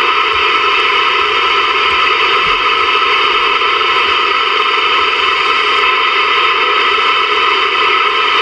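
Steady static hiss from a Ranger VR-9000 11-meter multimode radio's receiver as it is stepped up through empty lower-band channels around 26.7 MHz, with no station coming through.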